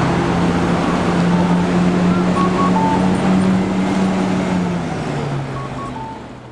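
City street traffic: a steady rush of road noise with a vehicle engine humming close by. Faint short electronic beeps recur every few seconds over it, and the whole sound fades out near the end.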